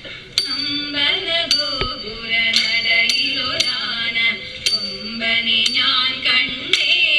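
Women singing a traditional Malayalam Thiruvathira Kali song while the dancers clap their hands in time, sharp claps about twice a second.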